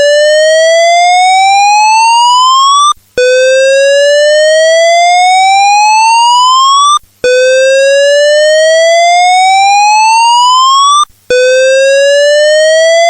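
Australian fire alarm voice-evacuation system sounding its evacuation tone: a loud whooping sweep that rises steadily in pitch for about four seconds, then breaks off briefly and starts again low. The tone signals that occupants must evacuate.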